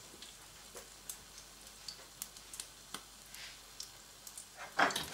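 Folded mushroom omelette frying gently in oil in a nonstick pan: sparse, faint crackles and pops of the fat, with a louder cluster of crackling near the end.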